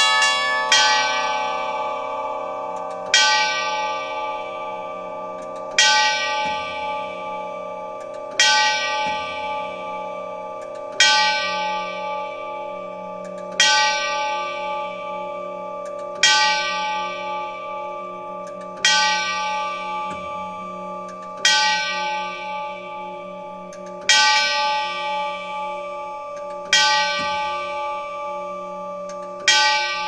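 Grandfather clock bell striking the hour: a slow, even series of single strikes, about one every two and a half seconds, each ringing on and overlapping the next.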